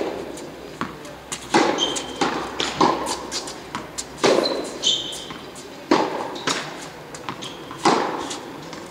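Indoor tennis rally: sharp racket-on-ball hits about every one and a half to two seconds, with fainter far-side hits and ball bounces between, echoing in the large hall. Several brief high squeaks of tennis shoes on the court surface come between the strokes.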